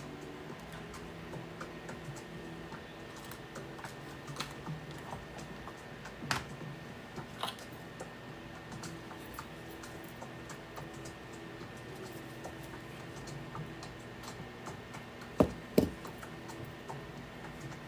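Light, scattered clicks and taps of small tools and parts being handled at an electronics soldering bench, with two sharper clicks close together near the end, over faint background music.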